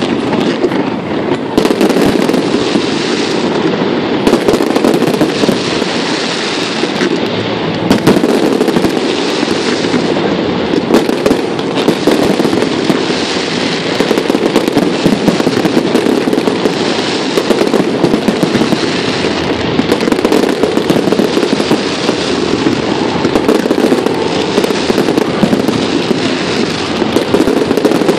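Aerial fireworks display at full intensity: a dense, unbroken barrage of shell bursts and crackle, with bangs overlapping continuously.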